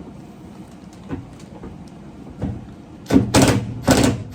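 Hand tool working at the 10 mm mirror nut inside a car's hollow stripped door: a few light knocks, then two loud scraping rasps near the end.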